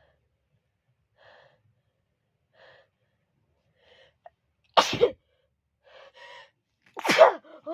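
A woman sneezing, brought on by tickling her nose. A few short, faint catching breaths lead up to a loud sneeze about five seconds in, and a second loud, voiced burst follows near the end.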